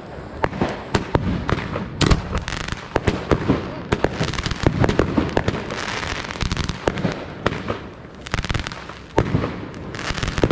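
Fireworks display: a rapid, continuous run of sharp shell bursts and bangs, overlapping with crackling.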